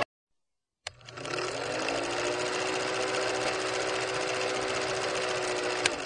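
Film projector sound effect playing under a countdown leader: a click, then a steady mechanical whirr and rattle with a hum that settles in pitch as it comes up to speed. A sharp click near the end, then it fades out.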